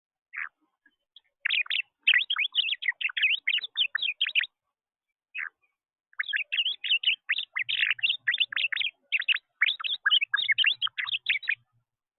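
A small songbird singing a rapid, jumbled run of chirps and warbled notes in two long bouts, each begun by a single short call note.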